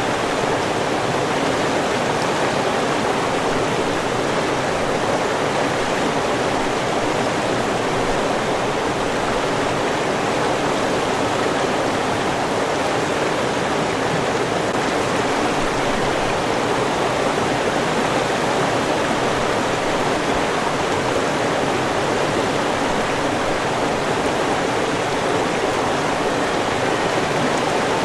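River water rushing and splashing, a steady, even noise.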